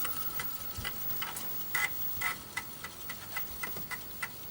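Amiga 500 Plus floppy drive reading a disk as it loads, its head stepping in a run of sharp clicks that settle into an even ticking of about three to four a second.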